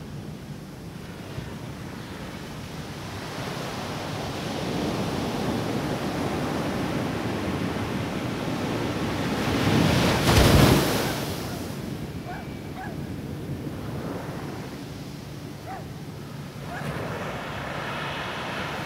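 Small ocean waves washing up on a sandy beach, with one wave breaking at the shore about ten seconds in, the loudest moment, before the wash fades back.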